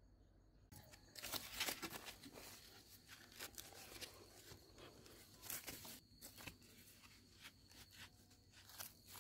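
Wooden stick jabbed again and again into dry soil covered with dead leaves, poking holes in the ground: faint, irregular crunching and scraping of leaves and earth with each stab, starting about a second in.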